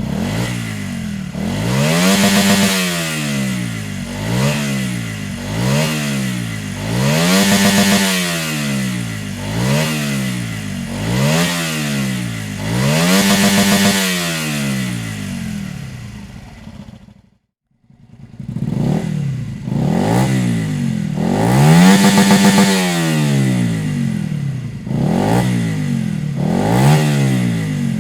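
Honda Varadero 125's V-twin engine revved again and again through an aftermarket Dominator exhaust, the pitch climbing and falling back about every two seconds. The sound drops out briefly about two-thirds of the way through, then the revving resumes.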